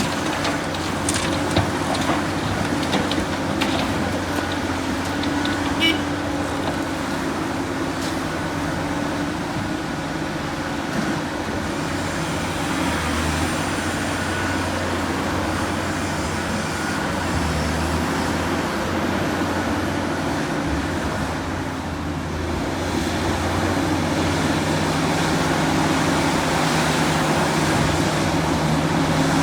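Large excavator's diesel engine running steadily as it works, with a few short knocks in the first seconds, growing a little louder about three quarters of the way through.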